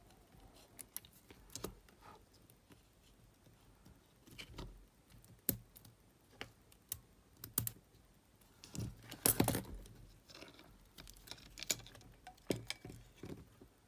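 Irregular light clicks and taps of a small screwdriver and metal parts on a Sony TCM-450 cassette mechanism being worked on and handled, with a short louder clatter about nine seconds in.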